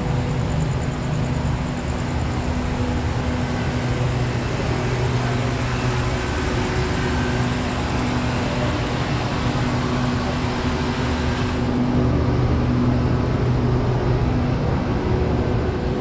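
A diesel passenger train standing at the platform, running steadily: a constant low hum over a deep rumble.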